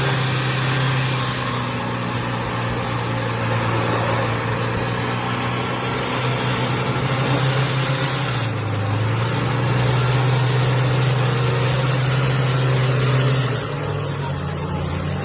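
Nissan Navara NP300 pickup engine running steadily under heavy load while it tows another pickup up a muddy slope on a strap. Its pitch drops briefly about halfway through and again near the end.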